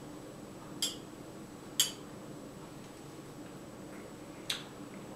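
Small glasses clinking lightly in a toast: two short, sharp clinks about a second apart, then a single quieter tick near the end, over quiet room tone.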